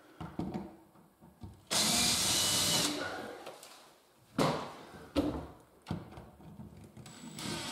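Cordless drill-driver fixing a metal drawer runner to a kitchen cabinet side. It runs for about a second, then gives a shorter burst and a couple of sharp clicks, and starts up again near the end.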